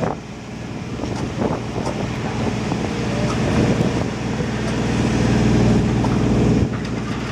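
Heavy diesel demolition machinery running under load, louder through the middle and easing off near the end, with scattered knocks of debris early on.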